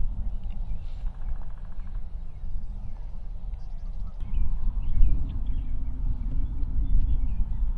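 Wind rumbling on the microphone, swelling louder in the second half, with small songbirds calling in the background and a short rapid rattle about a second in.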